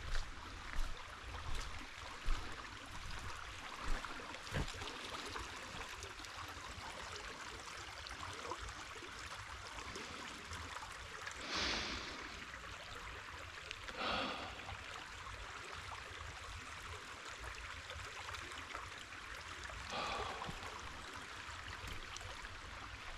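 Steady rush of flowing water. Footsteps on the trail come in the first few seconds, and three short breath sounds come near the middle and toward the end.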